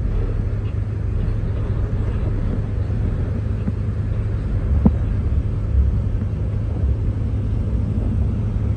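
Low, steady rumble of a car engine running at low speed, heard from a slowly moving car.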